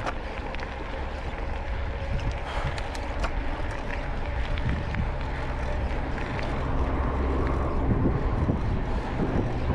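Wind rushing over a GoPro's microphone on a moving bicycle, a steady low rumble with road noise and a few faint ticks. A motor vehicle's engine hum grows louder in the second half.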